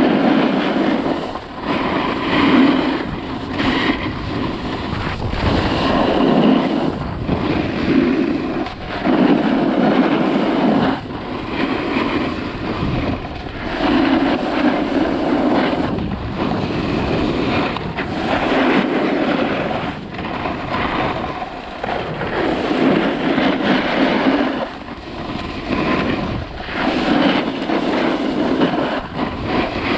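Edges scraping and hissing over firm groomed snow on a downhill run, swelling and fading every few seconds as the rider turns, with wind rushing over the camera microphone.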